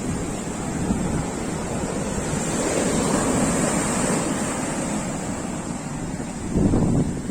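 Sea waves washing, with wind buffeting the microphone; the surf swells about three seconds in, and a louder rush of water or wind comes near the end.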